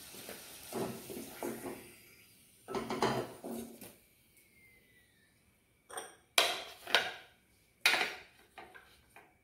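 A spatula lifts fried potatoes out of hot oil in a steel kadai, with a light sizzle dying away and a few soft knocks. Then come about five sharp clatters of the spatula and utensils against a steel plate.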